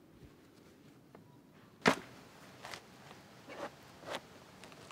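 Coconut husking by hand on a spike: one loud sharp crack about two seconds in, then a few faint knocks.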